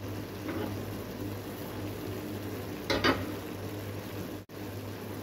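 Minced beef and vegetables sizzling steadily in a pot on the stove, with one brief louder sound about three seconds in.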